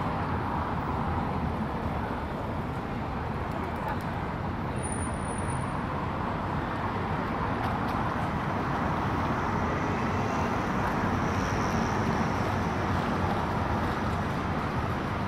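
Steady road traffic on a busy city avenue: a continuous rush of car engines and tyres with no single vehicle standing out.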